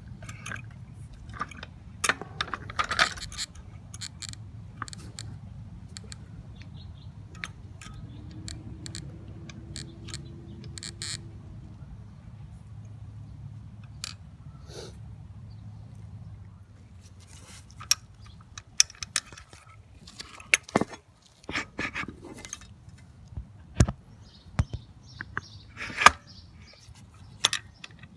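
Metallic clinks and jangling of a dethatcher's spring-wire tines and steel spindle hubs being handled and slid onto a Mantis tiller's shafts, with sharp clicks scattered throughout and coming thicker in the second half. A steady low hum sits underneath until about two-thirds of the way through.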